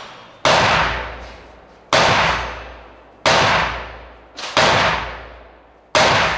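A run of gunshots from a competitor's firearm: five shots, about one every second and a half, each with a long echoing tail.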